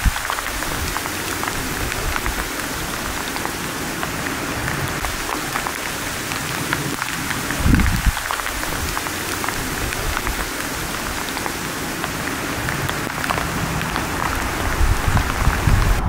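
Steady rain falling, a dense even hiss dotted with many small drop ticks, with a short low rumble about eight seconds in.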